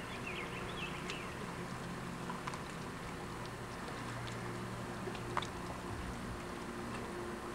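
Steady rushing of a river in flood, with a few faint bird chirps near the start and a couple of light clicks.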